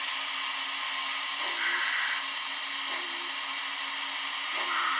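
ESU sound decoder and smoke generator of an H0 model BR 78 (Prussian T18) steam locomotive: a steady steam hiss as the model starts off with its cylinder-steam blow-out working. A pulse comes through the hiss about every one and a half seconds.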